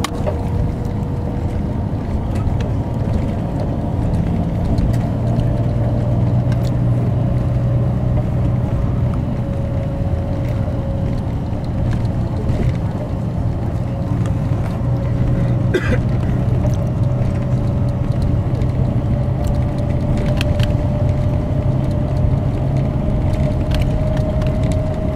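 Tour bus driving through town, heard from inside the cabin: a steady engine and road drone with a faint whine that slowly rises in pitch, and a few light clicks.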